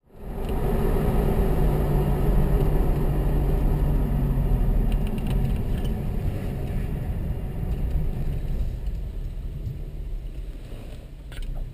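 Car driving, heard from a camera mounted on its bonnet: a steady engine hum with low road and wind rumble. It fades gradually as the car slows and comes to a stop.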